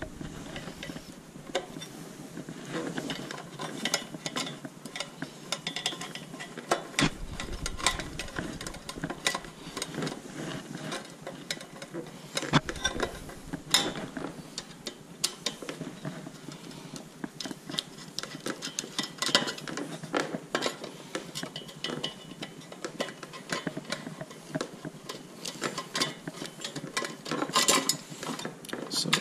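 Screwdriver working screws out of the back of a stainless steel tap box: irregular small metallic clicks, scrapes and taps, with a few sharper knocks of the screwdriver against the box.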